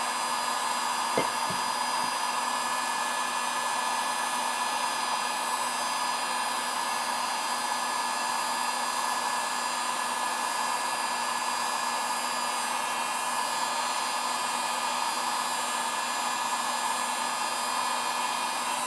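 Electric heat gun blowing steadily, a fan-driven rush of air with a fixed whine, heating a chainsaw crankcase so that a frozen crankshaft will slide into its bearings. A faint click about a second in.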